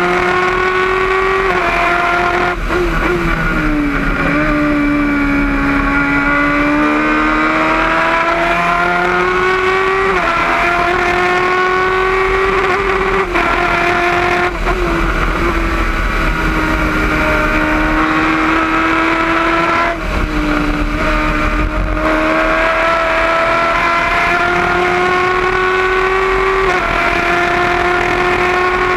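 Engine of a Gloria C8F single-seater formula car heard onboard, running hard for the whole lap section. Its pitch climbs steadily under acceleration and drops abruptly at each gear change or lift for a corner, several times over, with wind and tyre hiss beneath.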